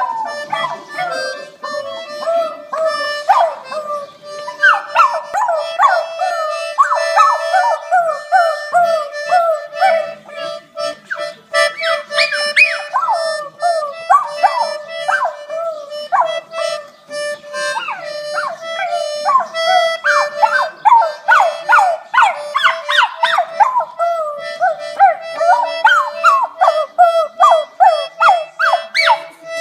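A small dog howling and yipping along to a child's small accordion. The accordion holds steady reedy notes underneath, while the dog's short rising and falling cries come in quick runs throughout.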